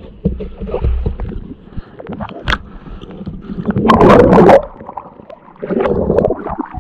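Muffled underwater sound: a scuba diver's exhaled bubbles gurgle loudly for under a second about four seconds in, among small clicks and knocks. Water sloshes and splashes near the end as the diver breaks the surface.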